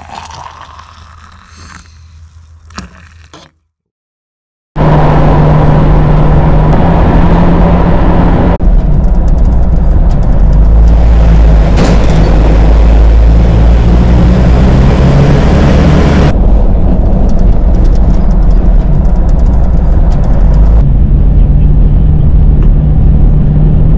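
Hot water poured into an insulated cup, the pitch rising as the cup fills. After a short silence comes loud, steady driving noise from a vehicle on the road, heavy wind and road noise with a low rumble, changing abruptly at a few cuts.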